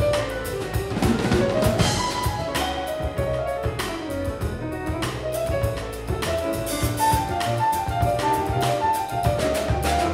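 Jazz piano trio playing live: grand piano running quick lines of notes over upright double bass and a drum kit with steady cymbal strokes.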